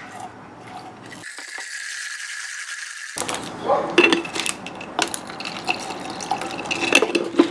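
Iced coffee with ice cubes being swirled and stirred in a glass mason jar: liquid sloshing and ice clinking against the glass, with several sharp clinks in the second half.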